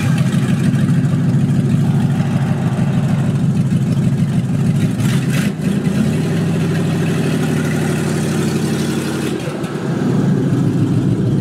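Dodge D100 pickup truck's engine running steadily, its note shifting slightly about six seconds in.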